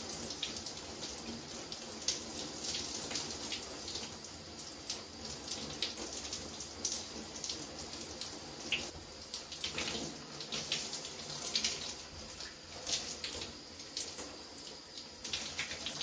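Shower running, its spray splashing over a person's head and hair as he rinses, with frequent irregular splatters.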